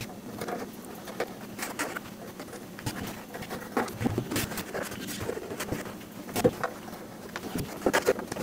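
Irregular small metal clicks, taps and scrapes as hands work the sheet-metal top cover off a radio transceiver's case, with a few louder knocks.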